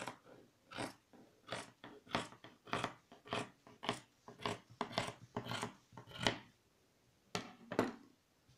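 Scissors cutting through folded layers of lycra fabric: a steady run of rasping snips, about two a second, with a brief pause near the end before two more.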